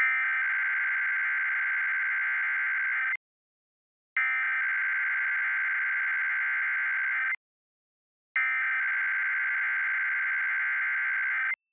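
Emergency Alert System SAME header for a Required Weekly Test: three identical bursts of raspy, buzzing digital data tones, each about three seconds long, separated by about a second of silence.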